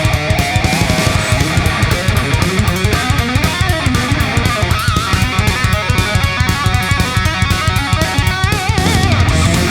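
Background rock music with electric guitar and a fast, steady drum beat.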